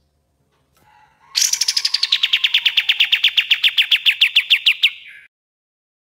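Kapas tembak bulbul singing its rapid-fire 'tembak' trill: a fast run of about ten sharp notes a second, starting high and sliding down in pitch, then holding steady for about three seconds before stopping.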